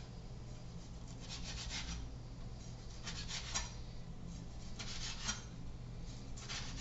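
Knife sawing through spicy Italian sausage on a cutting board: short runs of rasping back-and-forth strokes, coming about every second and a half to two seconds.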